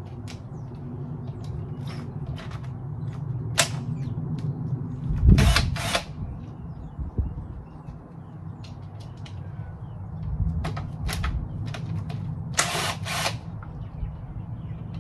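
Cordless drill undoing the engine's rocker cover bolts, running in short bursts among clicks of metal on metal. The drill's battery is going flat.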